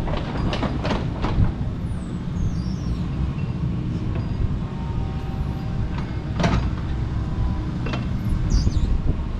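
Kobelco SK85MSR 8-ton excavator's diesel engine running under work with a steady low drone. Sharp knocks and cracks come several times in the first second and a half, and again about six and a half and eight seconds in.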